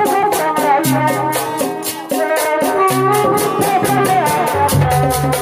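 Music with a fast, steady rattling shaker beat over drums, low bass notes and a bending melody line.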